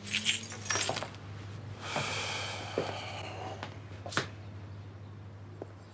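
Light clinks and knocks of small objects being handled on a counter, with a brief glassy jingle about two seconds in and another knock about four seconds in.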